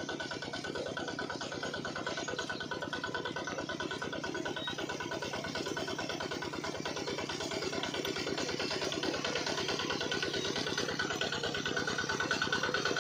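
Small single-cylinder diesel engine driving a centrifugal water pump, running steadily with an even, rapid beat. It grows a little louder in the last few seconds.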